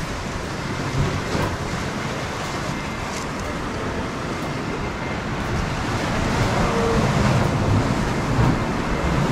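Ocean surf washing steadily, with wind noise, growing a little louder about six seconds in.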